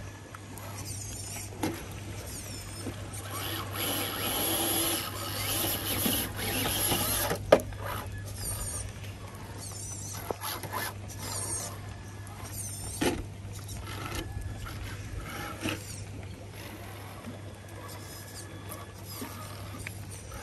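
Electric motor and drivetrain of an MST radio-controlled scale crawler whirring in spurts as it crawls over wet rock, with tyres and chassis knocking and scraping on stone. The motor runs loudest for a few seconds a few seconds in, and a sharp knock comes about seven and a half seconds in. High squeaky chirps recur throughout.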